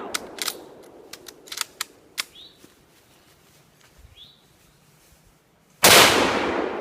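Sharp metallic clicks of a firearm being handled in the first two seconds, then a single loud gunshot about six seconds in that rings out and dies away slowly.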